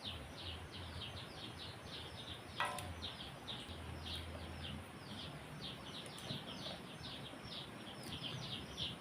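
Small birds chirping steadily, a rapid run of short high chirps, about three or four a second. About two and a half seconds in there is a single ringing clink.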